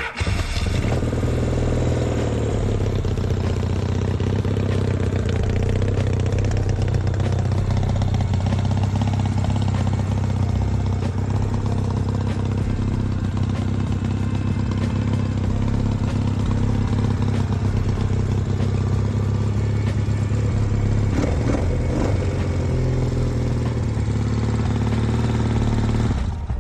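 Yamaha XS650's air-cooled parallel-twin engine running steadily at idle. Its pitch briefly rises and falls about 21 seconds in.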